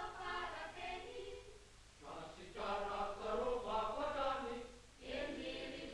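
A choir singing a slow song phrase by phrase, with short breaths about two seconds in and again near the end.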